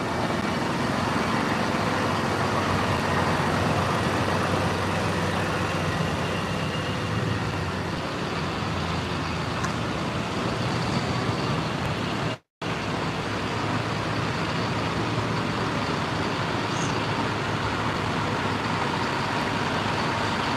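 Tractors and cars driving past in a steady stream on a wet road: continuous engine and tyre noise. The sound cuts out completely for a moment about halfway through.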